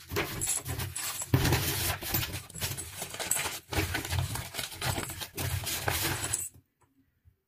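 Crumpled kraft packing paper rustling and crinkling as hands dig through a cardboard box, stopping abruptly near the end.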